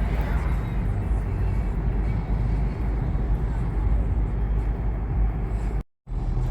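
Steady engine and road rumble of a van driving along, heard from inside the cabin. It cuts out for a split second near the end.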